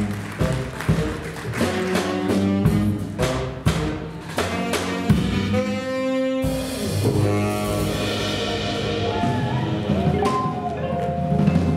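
Live jazz trio playing a blues: saxophone over upright double bass and electric guitar. Short punchy accents in the first half give way to long held notes in the second half.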